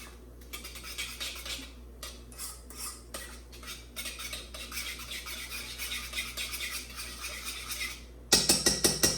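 A utensil stirring barbecue sauce in a dish, with quick, repeated clinks and scrapes against the container as the sugar is worked in to dissolve. Near the end a much louder, fast, regular clatter starts suddenly.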